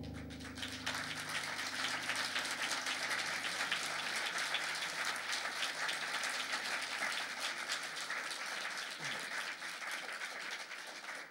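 Concert audience applauding. It swells up about a second in as the last keyboard chord dies away, then eases slightly near the end.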